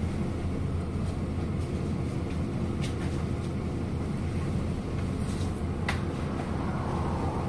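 Cabin noise of a MAZ-103 city bus under way: a steady low drone of its engine and running gear, with two short clicks or rattles, about three and six seconds in.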